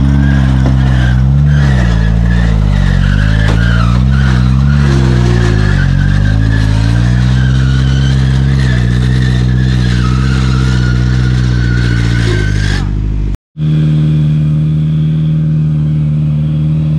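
Off-road buggy engine revving up and down under load as it crawls up a steep, muddy slope. About 13 s in, the sound cuts briefly, then an engine runs at a steady speed.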